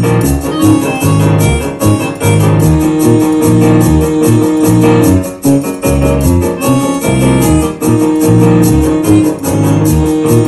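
Music: keyboard chords and a bass line over a steady, quick beat.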